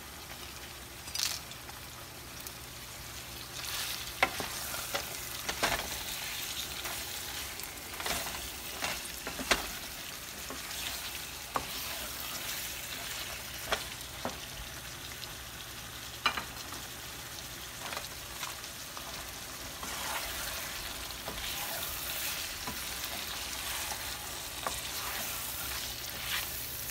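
Goat ribs and sliced onions sizzling as they fry in oil in a frying pan, with a wooden spatula stirring them and knocking against the pan now and then.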